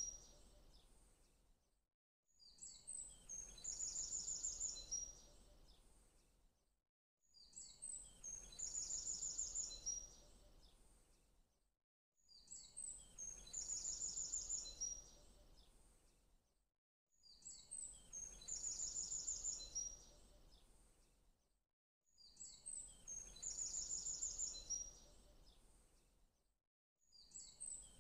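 Looped birdsong recording: the same short phrase of high, rapid chirping trills repeats about every five seconds, each time fading out before a brief silent gap.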